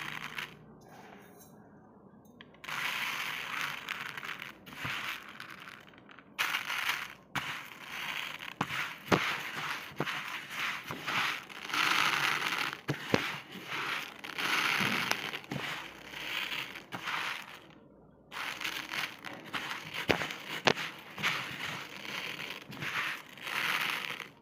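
Raw rice grains poured into a plastic tub: a dry, rushing hiss of grains pattering onto the plastic and onto rice already there, with scattered sharp ticks of single grains landing. The pouring stops and starts several times, with a pause of about two seconds just after the start and briefer ones around the middle and later on.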